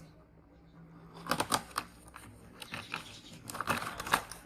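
Cardboard box being opened and handled: short scrapes and rustles in two clusters, starting about a second in.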